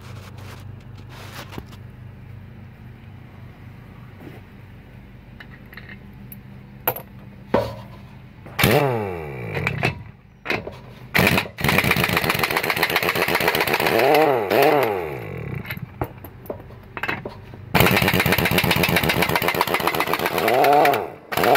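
Large impact wrench hammering at the lug nuts of an RV wheel, nuts torqued to about 475 foot-pounds, in three long bursts that start about eight seconds in, the motor speeding up and slowing down between them. Before that there are only a few light clicks of handling over a low hum.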